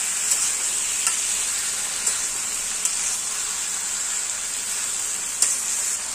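Chicken pieces frying in oil in a wok over a high flame, a steady sizzle, while a metal spatula stirs them, with a few light clicks and scrapes against the pan.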